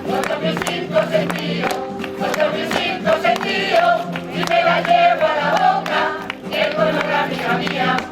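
Rociero choir singing a sevillana with acoustic guitar accompaniment, with many sharp rhythmic strikes running through the music.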